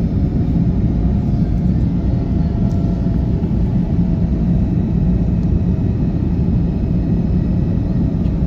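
Steady low rumble of airliner cabin noise in flight, engines and airflow droning evenly with a few faint steady tones above.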